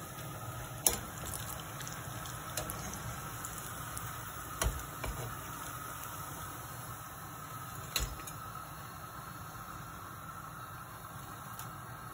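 Hot oil sizzling steadily in a wok as fried tapioca vadas are lifted out with a wire spider strainer, with three sharp metal clinks of the strainer and spatula against the pan, about one, five and eight seconds in.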